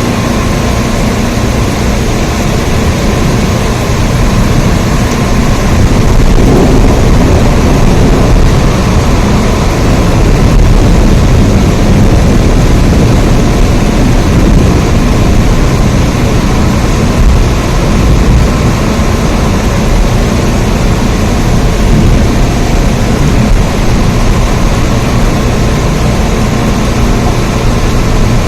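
Steady heavy rain: a dense, even hiss with a strong low rumble underneath, swelling slightly a few seconds in and holding steady.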